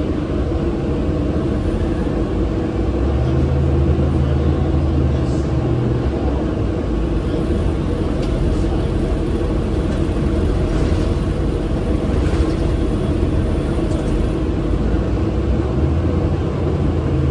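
Orion VII Next Generation city bus running, heard from inside: a steady rumble, with a deeper engine hum that swells about three to six seconds in and again near the end.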